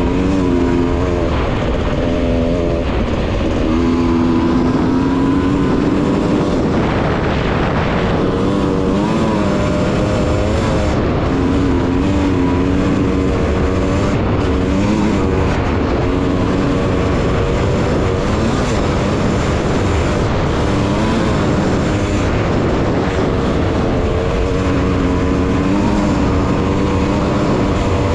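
Off-road racing dirt bike and quad engines running and revving, their pitch rising and falling over a steady noisy din.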